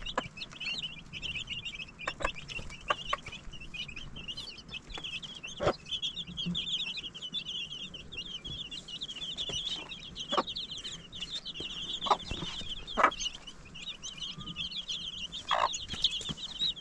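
A brood of chicks peeping constantly in a dense, high-pitched chatter around their mother hen, broken by a few short sharp knocks.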